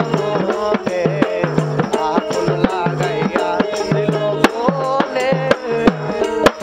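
Bengali folk music: a dotara plucked in a quick melody with sliding notes, over a steady percussion beat.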